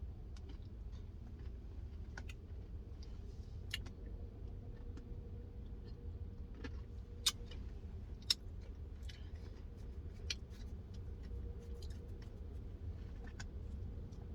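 Quiet eating sounds: scattered sharp clicks and mouth noises from someone eating a Dairy Queen Blizzard, over a low steady hum.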